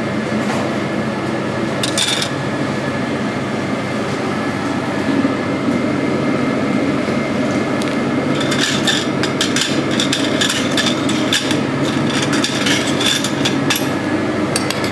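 Steady drone of kitchen ventilation, with quick irregular taps and clicks of kitchen work: a brief cluster about two seconds in, then a dense run of taps from about eight seconds in until near the end.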